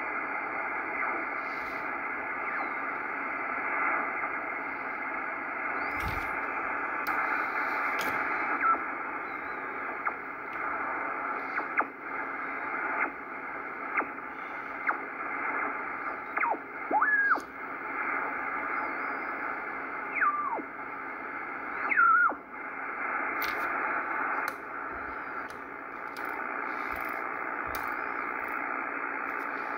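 Ten-Tec Corsair II HF transceiver's receiver audio as the dial is tuned: steady band hiss through its narrow speech filter, broken by short whistles that slide in pitch as the tuning passes over signals. Sharp clicks are scattered through it, with a run of them near the end.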